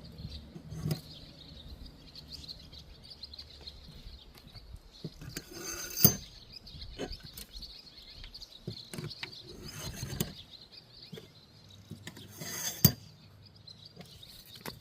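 Steel target plates and dividers clinking against the rack's metal pole as they are slid on, a few separate sharp clanks with the loudest about six seconds in and near the end. Birds chirp steadily behind.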